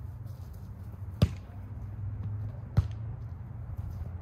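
Volleyball being struck by players' hands and forearms during a rally: two sharp slaps about a second and a half apart, and a third right at the end.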